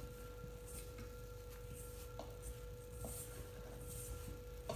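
Faint rustling of a hand rubbing maida flour, curd and oil together in a stainless steel bowl, with a couple of light clicks against the bowl. A steady faint high hum runs underneath throughout.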